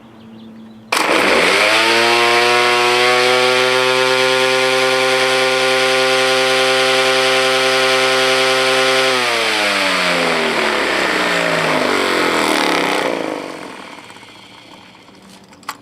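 Electric string trimmer fitted with a 3D-printed blade attachment, switched on about a second in and running at a steady high pitch. About nine seconds in it is released and winds down, its pitch falling as the blade coasts to a stop, with a whooshing noise that fades out a few seconds later.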